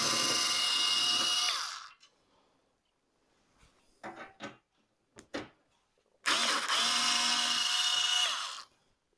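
Cordless electric screwdriver with a T20 Torx bit running twice, about two seconds each, to back out the two Torx screws on the top edge of an oven door. The first run ends about two seconds in and the second starts about six seconds in, with a few small handling clicks between them.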